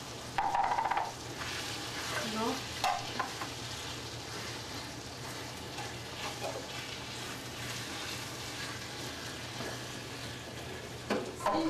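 Ground beef and corn sizzling steadily as they fry in a stainless steel skillet, stirred with a wooden spoon. A brief louder sound comes just after the start.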